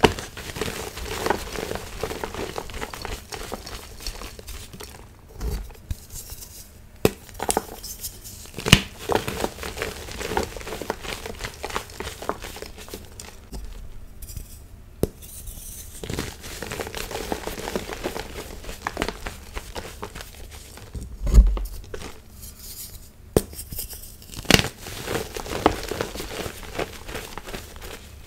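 Blocks of gym chalk being crushed and crumbled by bare hands: dense, dry crunching and crackling, with sharper snaps as pieces break apart. A dull thump stands out about three-quarters of the way through.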